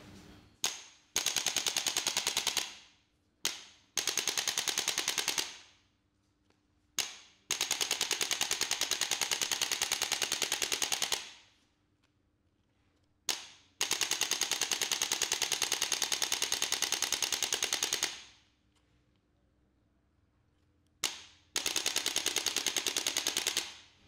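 Electric chiropractic adjusting gun firing against the lower spine in five runs of rapid clicking strikes, about ten a second. Each run is led by a single sharp click, and the longest runs go on for about four seconds.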